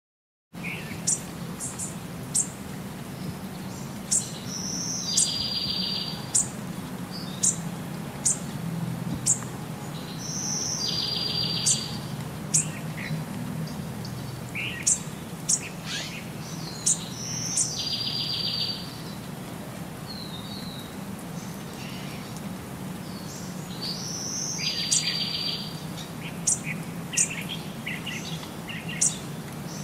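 Small songbirds chirping: many short, sharp high calls, with a buzzy trill that comes back about every six seconds, over a steady low hum.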